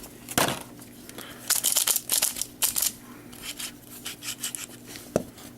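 Plastic packaging crinkling and rustling in short, irregular bursts as a puzzle is handled and unwrapped.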